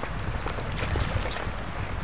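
Wind buffeting the microphone as a steady, uneven low rumble, with a few faint scattered clicks over it.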